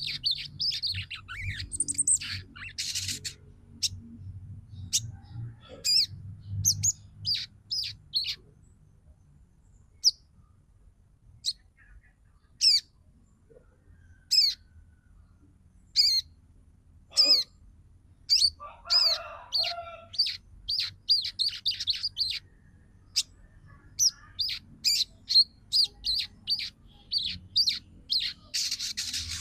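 Female sogon bird chattering: quick runs of short, sharp, high chirps broken by pauses, growing denser and busier near the end. This is the twittering call that a female gives to draw a male and set him calling.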